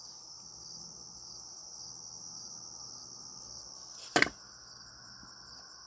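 Steady chorus of crickets trilling. About four seconds in comes one short, sharp, loud knock.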